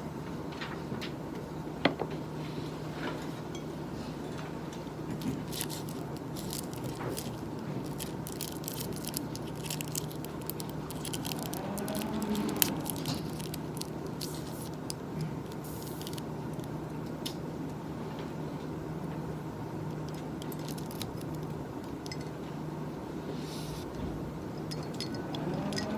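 Close-up small clicks, taps and clinks of objects being handled on a desk, scattered irregularly over a steady low hum, with two sharper single clicks about two seconds in and near the middle.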